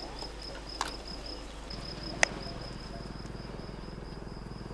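A cricket chirping in a steady, evenly pulsed stream, breaking off briefly about a second and a half in. Two sharp clicks stand out, about a second in and about two seconds in.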